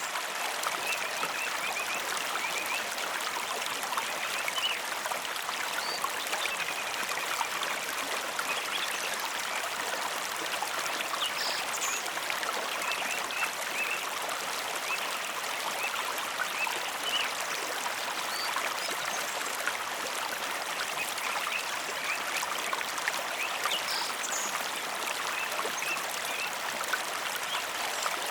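Mountain river flowing, an even, steady rush of water.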